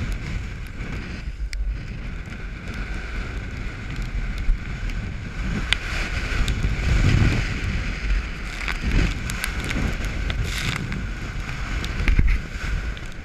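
Gale-force wind, 30 to 40 knots, buffeting the microphone at a sailboat's bow as a steady rumble, with sea noise and a few sharp clicks and knocks scattered through, swelling louder in gusts.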